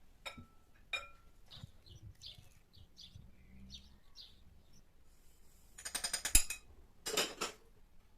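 Kitchen handling sounds: two light clinks, each with a short ring, then faint high chirps, then two short noisy bursts a second apart, the first with a sharp click in it.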